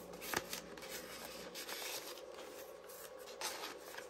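Quiet rustling and rubbing of paper and card as the pages and tags of a handmade journal are handled, with a few soft taps.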